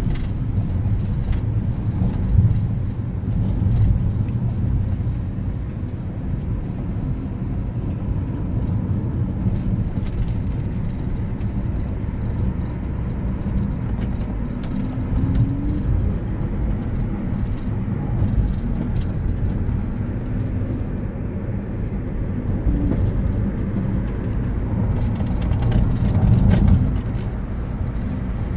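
Road and engine noise inside a small car's cabin while driving: a steady low rumble, with a brief rise in engine pitch about halfway through.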